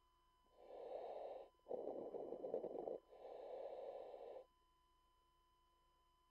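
Commercial diver breathing in a surface-supplied diving helmet: a hissing breath, a louder and rougher breath straight after, then another hissing breath, followed by a pause of about two seconds.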